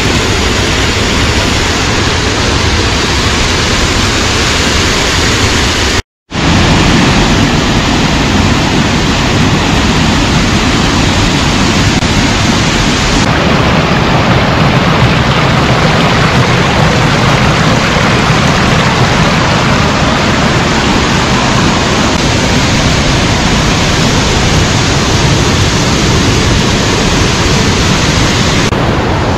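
Waterfall close by: loud, steady rushing of falling water. It cuts out for a moment about six seconds in.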